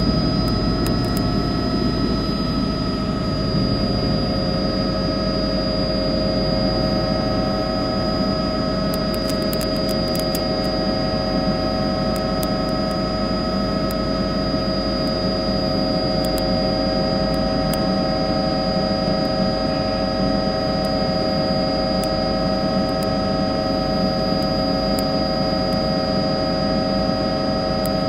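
Helicopter running steadily in flight, recorded from on board: a constant whine over a rushing noise, unchanging throughout.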